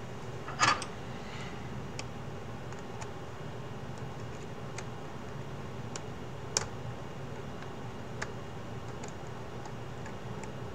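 Sparse small clicks and taps of small parts being handled at a 3D-printed plastic headset hinge as a metal hinge pin is worked in. A short rattle of clicks just under a second in is the loudest, with a sharp single click about halfway, over a steady low hum.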